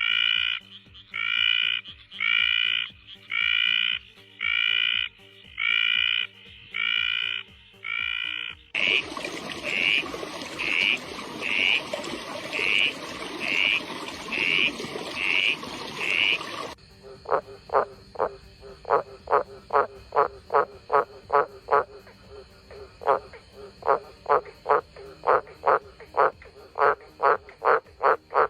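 Frogs calling in three spliced recordings. First comes a steady run of drawn-out calls, about one a second. After a cut at about nine seconds come shorter calls over a background hiss. After another cut near seventeen seconds comes a fast series of short clicking notes.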